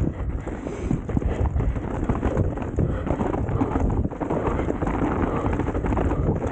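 RAAW Madonna enduro mountain bike ridden down a rough trail: a dense, continuous clatter of knocks and rattles from the bike over rough ground, with wind on the microphone.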